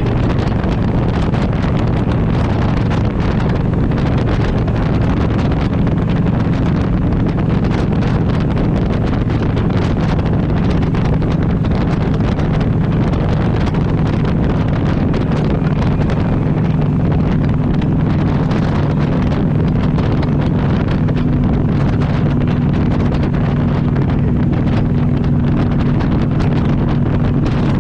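A vehicle running with a steady low drone and several humming tones, with wind rumbling over the microphone. It is the noise the uploader puts down to the transmission.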